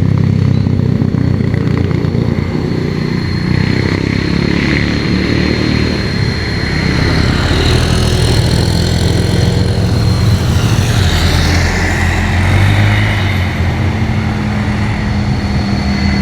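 Road traffic passing close by: motorcycle and car engines running continuously as vehicles go past one after another.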